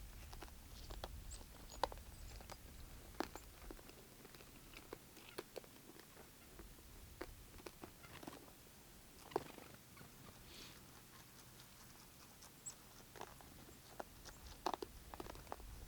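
Faint, irregular clicks and crunches of an animal feeding, scattered a few times a second at uneven intervals.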